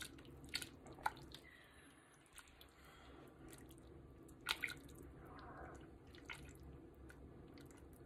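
A metal spoon clinking against a pot and scooping broth, with a few scattered faint clinks and drips over a low steady hum.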